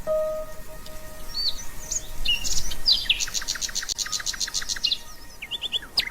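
Wild birds calling: a long, steady whistled note at the start, then a rapid run of repeated high chirps, about six a second, through the middle, with a few more chirps near the end.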